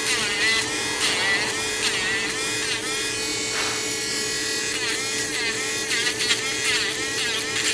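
Small handheld electric tool's motor whirring steadily as it works paint out of the crevices of a doll's arm, its pitch swooping down and back up about once a second.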